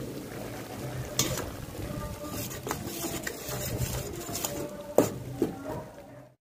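Metal ladle stirring and scraping through simmering masala in a stainless steel pot, with a few sharp clinks of metal on metal, the loudest about five seconds in, over a low steady hum. The sound cuts off just after six seconds.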